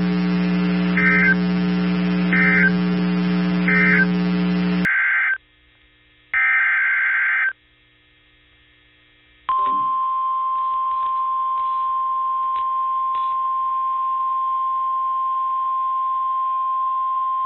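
Emergency alert radio signals: a steady buzz with three short, high SAME data bursts about a second and a half apart, then two longer data bursts. After about two seconds of silence, the NOAA Weather Radio warning alarm, a single steady tone of about 1050 Hz, sounds for about nine seconds, the signal that a warning message follows.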